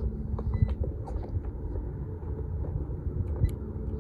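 Steady low rumble with a faint constant hum, and a scattered few light clicks and taps of handling.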